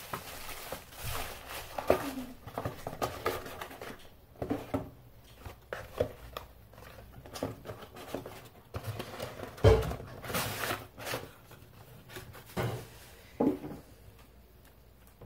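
Handling noises on a work surface: irregular clicks, taps and knocks, with one louder thump about ten seconds in, growing sparse near the end.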